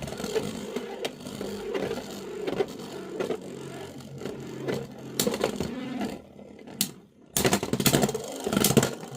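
Two Beyblade X spinning tops whirring against each other in a plastic stadium, with repeated sharp clacks as they collide. The sound nearly drops out about six seconds in, then comes back louder.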